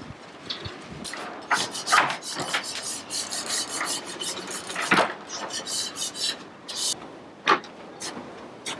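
Plastic cable ties being pulled tight through galvanized anchor chain links: a run of short rasping ratchet zips, with a few sharp chain clinks.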